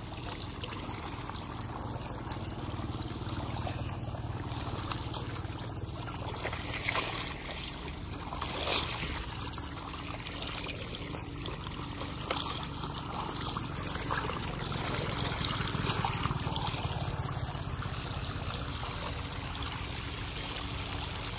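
Water gushing steadily from a propeller pump's outlet pipe into a flooded rice paddy. Under it runs the steady hum of the Komatsu G260 two-stroke brushcutter engine that drives the pump.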